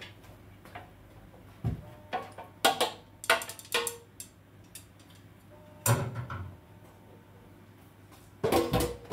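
Stainless steel kitchen containers and trays clattering as they are handled and set down on a metal counter: a low knock, then a quick run of sharp clicks and clinks, another clatter, and a louder clank near the end.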